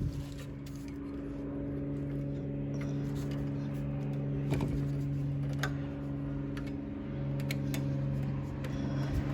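Scattered light clicks and taps of hand work on a rear brake caliper, over a steady low mechanical hum.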